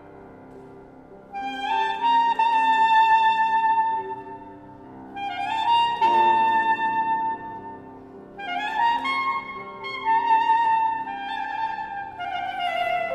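Alto saxophone playing long held notes in four phrases, each swelling in over quieter piano accompaniment.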